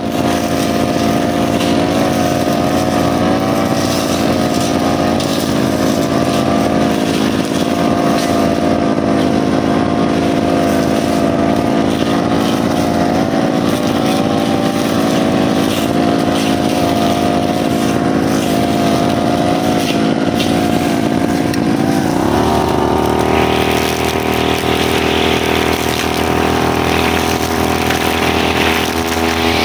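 Brushcutter's small two-stroke engine running steadily at part throttle, its pitch wavering slightly, then revved up to a higher, steady speed about three-quarters of the way through.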